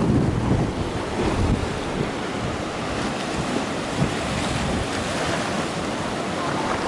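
Sea waves breaking and washing over a sandstone rock shelf, a steady surging wash of surf, with wind buffeting the microphone.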